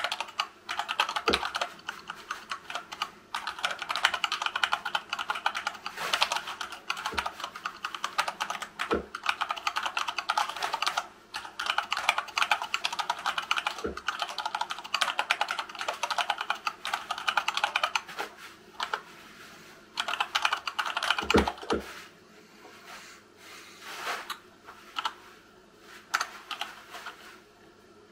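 Fast touch-typing on a hand-wired Dactyl Manuform split keyboard with silicone-lubed Gateron Brown tactile switches: a dense stream of keystroke clatter with a few deeper knocks. It thins to scattered keystrokes for the last several seconds.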